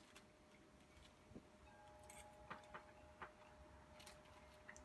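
Near silence: faint room tone with a steady hum and a few soft, scattered ticks.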